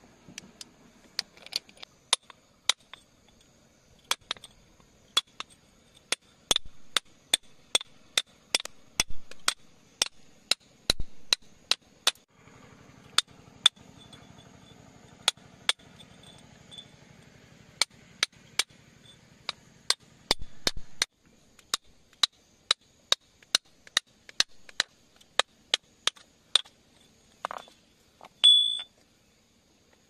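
Metal chisel tapping and chipping at wet rock around an embedded crystal: sharp, irregular clicking strikes, a couple a second, with a short high squeak near the end.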